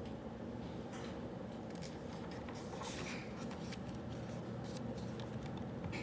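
Pen writing on paper in short, scattered scratchy strokes and light taps, over a steady low hum of room ambience.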